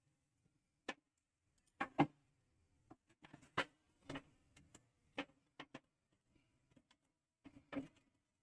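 Irregular light clinks and knocks of a metal plate (thali) against the steamer cooker as the plate of steamed khaman is lifted out and set down.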